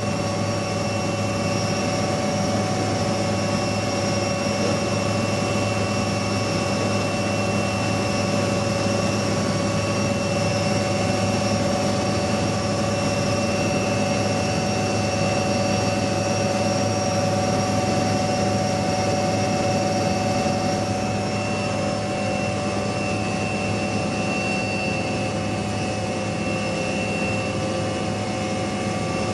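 Helicopter turbine engine running steadily: an even rush of noise with a steady high whine.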